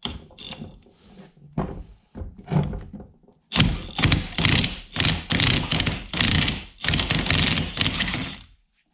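A few scattered knocks, then a DeWalt brushless cordless impact wrench hammering in several rapid bursts for about five seconds, breaking loose the nut on a John Deere mower deck spindle pulley.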